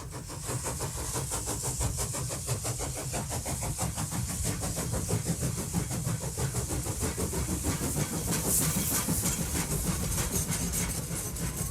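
Train running, with a fast, regular beat over a low rumble and a steady hiss.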